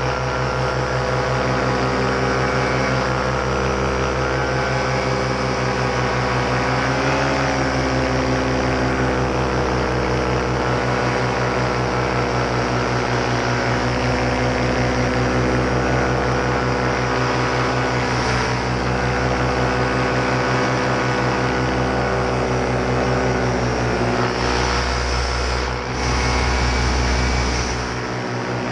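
Paramotor engine and propeller running steadily in flight, a loud, even drone whose pitch wavers slightly a few times. A low rumble swells in the last few seconds.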